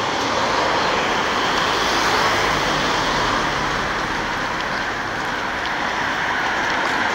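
Steady hiss of road traffic on an urban street, with no single vehicle standing out.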